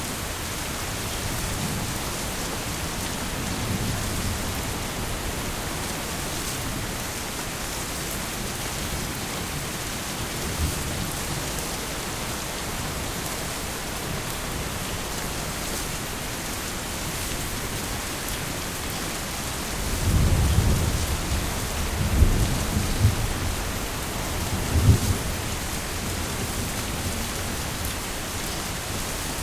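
Heavy rain falling steadily, with thunder. A long roll of thunder rumbles from about two-thirds of the way through, with a few sharper, louder peaks, and fainter rumbles come in the first few seconds.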